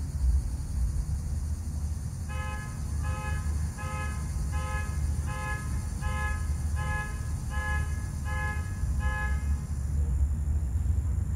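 A horn beeping in a steady series of about ten short, evenly spaced blasts, a little over one a second, starting about two seconds in and stopping shortly before the end, over a constant low rumble.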